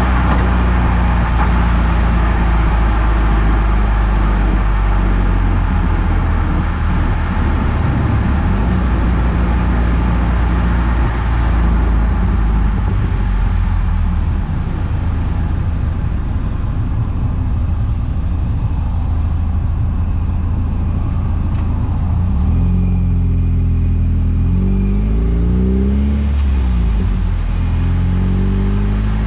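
Eunos Roadster on the move: its inline-four engine running under steady road noise. About three quarters of the way through, the engine note changes, then rises and falls.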